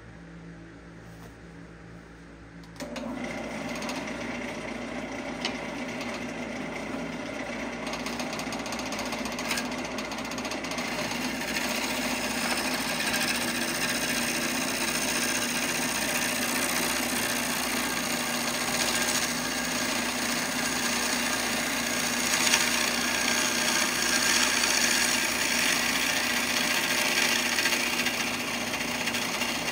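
Bowl gouge cutting a multi-wood glue-up spinning on a wood lathe. After a low hum, the tool bites in about three seconds in, and a rough, steady cutting noise follows that slowly grows louder.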